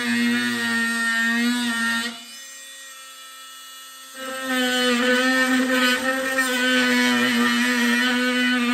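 Cordless oscillating multi-tool (POPULO 20V) running with a steady high-pitched buzz. About two seconds in, the buzz drops away for about two seconds, then the tool runs again.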